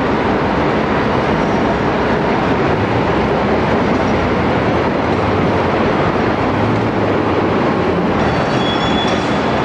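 Steady, loud rumbling noise without let-up, with a few faint high thin tones near the end.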